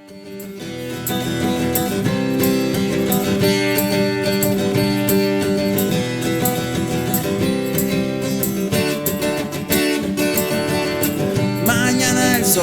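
Instrumental intro of a song played on strummed acoustic guitar, fading in over about the first second, then strummed steadily.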